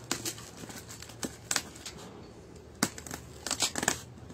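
Packing tape being picked at, cut and peeled off a polystyrene foam shipping box: scattered short crackles and scrapes, several in quick succession near the end.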